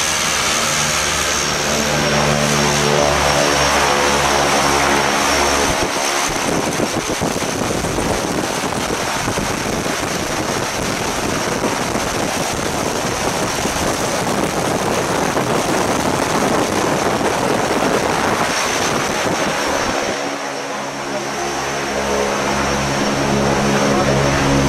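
Propeller engine of a skydiving jump plane running steadily. From about six seconds in until about twenty seconds, its tone is covered by a loud rushing noise; then the engine tone comes back.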